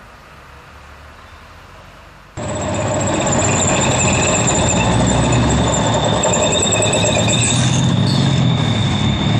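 Faint background hum, then, starting suddenly about two and a half seconds in, a Marder tracked infantry fighting vehicle driving past close by: a loud diesel engine and track rumble with a steady high-pitched whine from the running gear.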